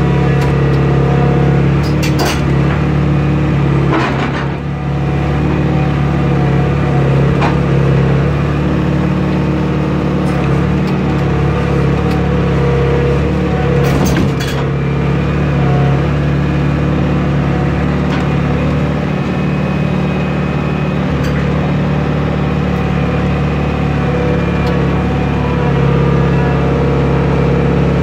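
John Deere 490E excavator's diesel engine running steadily while the arm digs, heard from the operator's seat. A few sharp clicks and knocks stand out over it, the plainest about 2, 4 and 14 seconds in.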